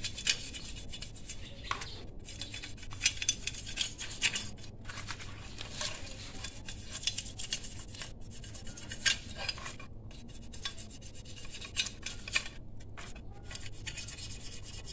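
Stiff brush scrubbing the painted surface of a Yamaha RX-King engine case half in quick, irregular strokes with brief pauses, stripping off softened old paint.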